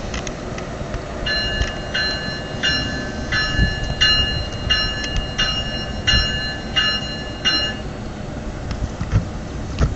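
NJ Transit train's multi-tone air horn sounding a rapid string of about ten short, evenly spaced blasts, roughly one and a half a second, with the train's low rumble and wind buffeting the microphone underneath.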